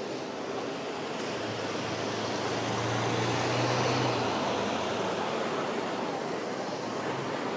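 Single-deck city bus's diesel engine as the bus pulls past close by, its low engine note building to a peak about three to four seconds in and then fading as it moves off, over the steady noise of a busy bus interchange.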